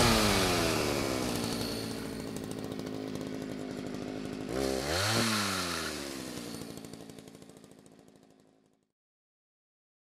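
Chainsaw engine dropping in pitch as the throttle is let off, revved briefly once more about halfway through, then winding down and fading away.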